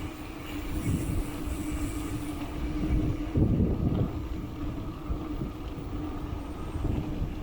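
Riding noise on an action camera's built-in mic: gusty low wind rumble over the microphone with a steady hum running under it, surging a little about halfway through.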